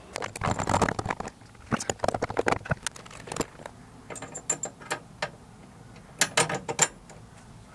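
Small metal parts clicking and rattling in short, irregular clusters as a clutch master cylinder pushrod and clevis are handled and fitted to the clutch pedal.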